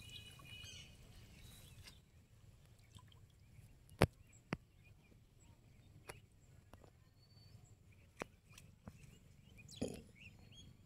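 Quiet pond-side ambience after a cast net lands: faint stirring water fades out in the first two seconds. Then come a few sharp clicks, two close together about four seconds in, and a short louder sound near the end.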